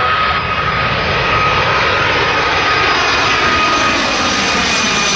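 Twin-engine jet airliner on final approach passing low overhead, its engines running with a loud rushing noise and a steady high whine. The noise turns sharper and brighter as the plane comes closer.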